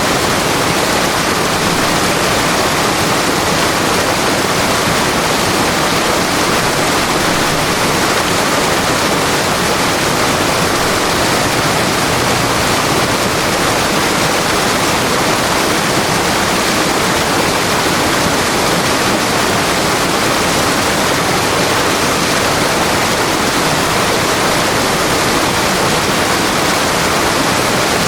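River water flowing and rushing steadily, a loud, even wash of noise that does not change.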